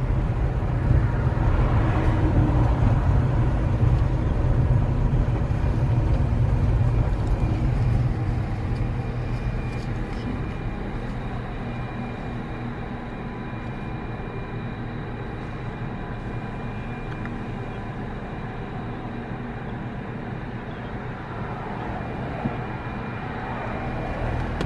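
Low rumble of a car on the move, easing off about ten seconds in, with faint steady whining tones above it.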